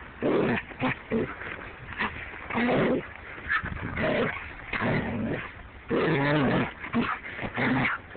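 Siberian husky vocalizing in play close to the microphone: a string of about eight short calls that bend up and down in pitch, mixing whines and grumbles.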